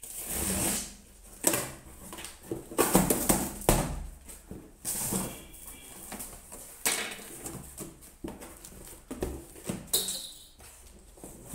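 Corrugated cardboard shipping box being torn open by hand: a string of sharp rips and crackles from the cardboard tear strip and tape, then the flaps and the packed box inside rustling and scraping.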